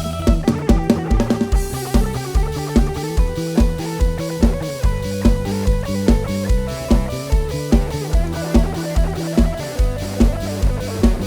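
Instrumental break of a live Isan luk thung band: a plucked guitar lead over bass and a drum kit keeping a steady kick-drum beat, about three beats a second.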